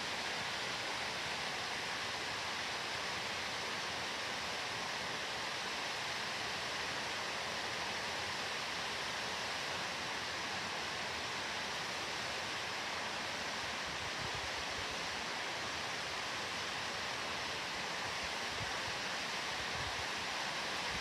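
Steady rush of water from a small stream and waterfall, an even, unbroken hiss, with a few faint low bumps near the end.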